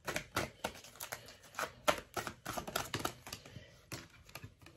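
A deck of oracle cards being shuffled by hand: a quick, irregular run of short card clicks and snaps.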